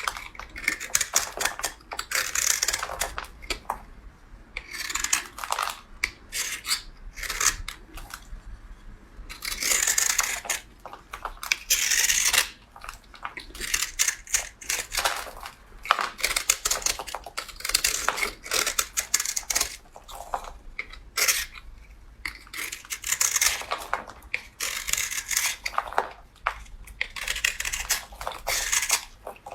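Blade cutting through soap: crisp, crackly scraping in repeated strokes, each lasting a second or two, with short pauses between.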